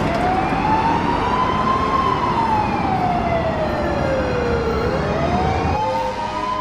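Ambulance siren in a slow wail: one long rise and fall in pitch, then rising again near the end, over road traffic noise.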